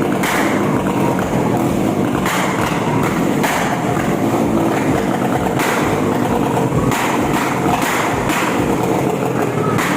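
Motorcycle engine running loud through an open aftermarket exhaust, with a few sharp blips spaced irregularly.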